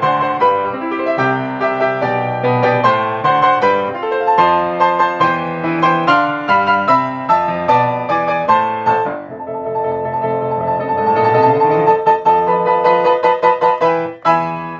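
Yamaha grand piano played fast, with dense chords and running notes. A little past halfway it drops quieter into held notes under quick repeated notes, which build back up before the playing stops right at the end.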